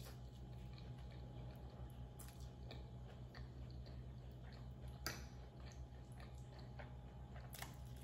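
A person chewing mouthfuls of soft, creamy penne pasta up close: faint wet mouth clicks and squishes over a steady low hum, with two sharper clicks, one about five seconds in and one near the end.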